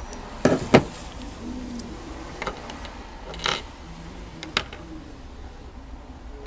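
Small sharp plastic clicks and taps from a new replacement Vauxhall remote key case being opened and handled. There are two quick clicks about half a second in, then three more spread out over the next few seconds.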